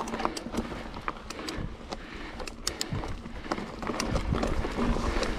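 Mountain bike climbing a steep, root-covered dirt trail: irregular sharp clicks and knocks from the bike rattling over the ground, over a steady low rumble.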